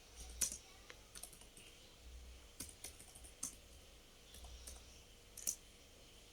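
Scattered keystrokes and clicks on a computer keyboard: a few irregular, separate taps with pauses between them.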